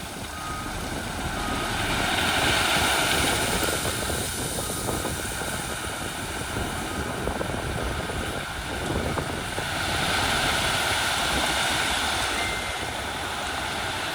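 Heavy diesel earthmoving machinery running under load, with a steady noisy drone that swells twice. A vehicle's reversing beeper sounds intermittently at the start and stops about two seconds in.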